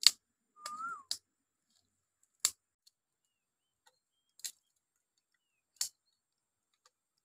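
A small wood fire popping: five single sharp snaps, one to two seconds apart, with a short whistled chirp about a second in.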